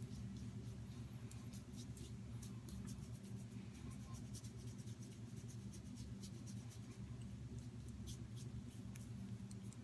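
Faint scratchy scraping and light ticks of shave cream being scooped out of its tub into a bowl, over a steady low hum.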